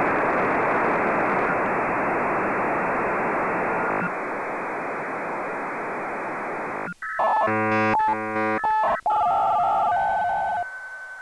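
Electronic signal-loss sound effect: radio-style static hiss that drops a little partway through and cuts off, followed by a quick run of electronic beeps and tones and a single steady high tone near the end.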